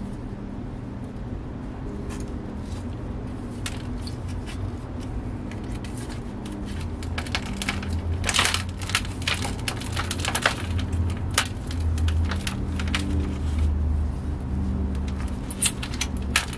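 Small hand tool digging and scraping through potting soil and bark dust in a planter, with gloved hands pulling out plants: repeated crackling crunches and scrapes, thickest about halfway through.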